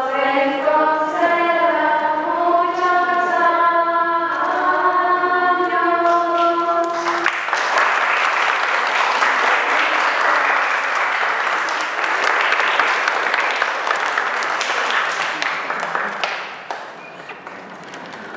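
A choir singing a slow Orthodox chant in long, held notes. About seven seconds in the singing stops and clapping follows; the clapping dies down near the end.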